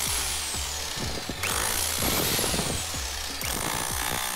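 Ryobi 1500 W SDS rotary hammer drill running with its bit hammering into a concrete floor, with background music under it. The sound shifts abruptly about a second and a half in and again near the end.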